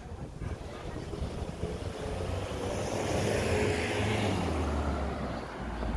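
A road vehicle, most likely a car, driving close by, its engine hum and tyre noise growing louder over the first few seconds. The low engine note dips slightly near the end as it goes past.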